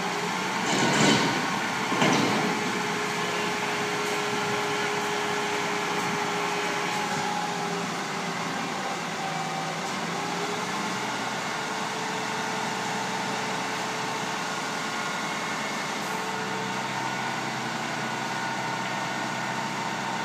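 Front-lift garbage truck running: two short, loud hisses about one and two seconds in, then a steady mechanical hum with a held whine over it for several seconds.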